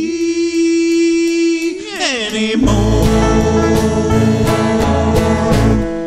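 Closing bars of a country-style song: a long held sung note that slides down about two seconds in, then guitar and bass playing on a steady beat before cutting off suddenly near the end.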